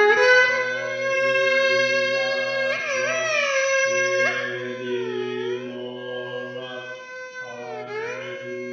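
Improvised Indian-style music: a long held melodic line that slides and bends between notes, with a sharp upward slide about three seconds in and slow dips later, over a steady low drone. It grows quieter toward the end.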